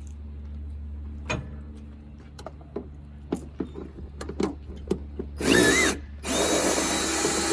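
Power drill running in two bursts, a short one with a rising and dipping whine about five and a half seconds in and a longer one of about a second and a half near the end, turning the 10mm bolts that hold the third brake light. Light clicks and knocks of handling come before.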